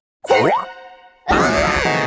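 Cartoon boing sound effect: a quick rising twang about a quarter second in that rings on and fades over about a second. Loud music comes in just past the middle.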